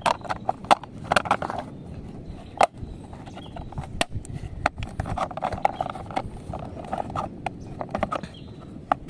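Hard plastic clicking, knocking and scraping as a toy car's plastic body is pressed and snapped onto its wheeled chassis. The clicks come irregularly, several a second in places, with stretches of rubbing between them.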